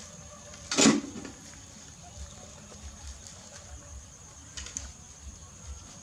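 Puppies feeding and chewing, making faint scattered clicks and small knocks, with one short, loud noise about a second in.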